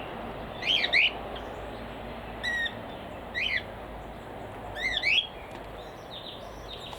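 Cockatiels calling: four short sweeping calls at irregular intervals, with a few fainter ones near the end.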